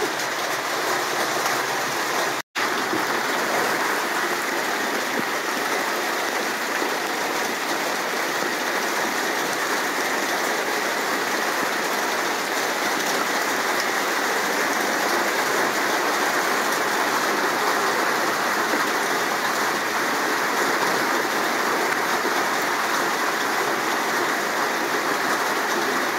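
Heavy rain pouring down in a steady, even hiss: a downpour.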